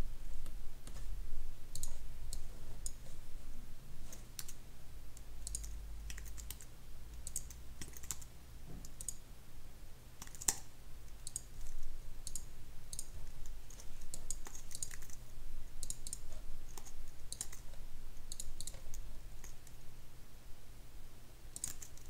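Computer keyboard keys and mouse buttons clicking in scattered, irregular strokes, over a low steady hum.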